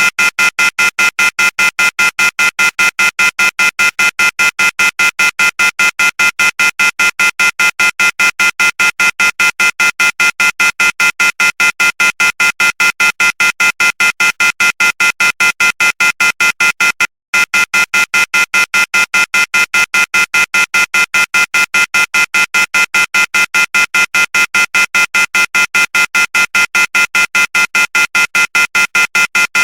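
Electronic phone ringer tone: a fast, even trill of beeps at a fixed high pitch, repeating without pause, with one brief break about seventeen seconds in.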